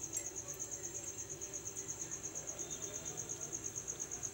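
A cricket chirping in a fast, even, high-pitched pulse, about eight pulses a second, over the faint hiss of a kachori frying gently in oil.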